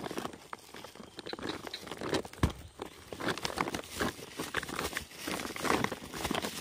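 Irregular crinkling and rustling from a plastic sack being handled, with a single dull thump about two and a half seconds in.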